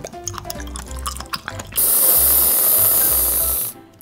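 Aerosol whipped-cream can spraying cream with a loud, steady hiss that starts about halfway through and cuts off shortly before the end. Before it, background music with a few light clicks.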